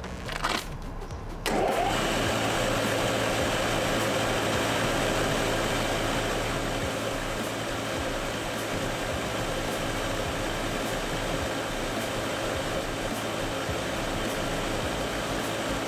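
Freund Flow Coater Mini fluid-bed granulator-dryer running: a steady rush of blown air with a machine hum, starting abruptly about a second and a half in.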